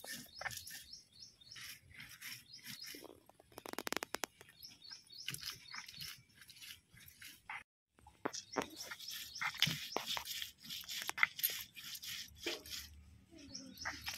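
Stone roller crushing and grinding garlic and dried red chillies on a flat grinding stone (sil-batta): irregular crunching and gritty scraping of stone on stone. The sound cuts out briefly a little past halfway.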